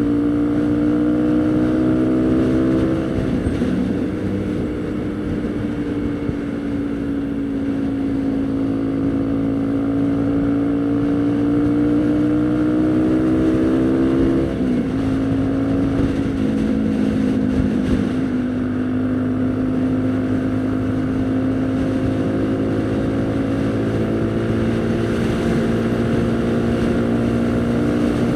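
Haojue NK150's single-cylinder four-stroke engine under way, its pitch climbing as it accelerates and dropping at gear changes about three seconds in and about halfway through, then running fairly steady with a slow rise.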